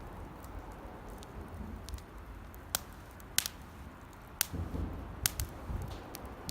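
Campfire of damp firewood crackling, with a few sharp pops spaced through the second half over a low rumble. The wet wood is what makes it pop.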